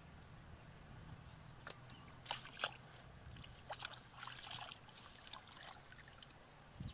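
Hands sloshing and splashing in shallow muddy water while groping for fish, a handful of short, scattered splashes over a faint low hum.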